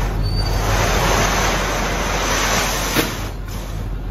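Heavy machinery engine running steadily with a loud hiss over it. The hiss eases after about three seconds, where there is a single sharp knock.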